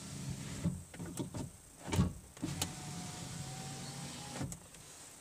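Volvo S80 power window motor and regulator driving the door glass, its slider freshly replaced and greased. The motor runs, stops with a few clicks and a knock, then runs again and stops with a click near the end.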